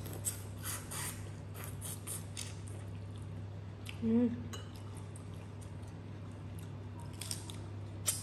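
Close mouth sounds of someone eating crab by hand: a string of short wet smacks and sucks on the shell and fingers, with a brief hummed vocal sound about four seconds in and a few more smacks near the end.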